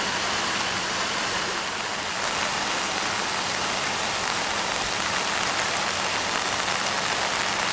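Heavy rain falling and floodwater rushing across a street, a steady hiss with no break.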